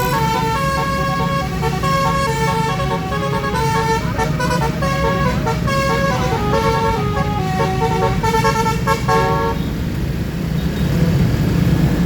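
Basuri 'telolet' multi-tone musical horn playing a quick stepping melody of several notes over a steady low rumble. The tune stops about nine and a half seconds in, leaving only the rumble.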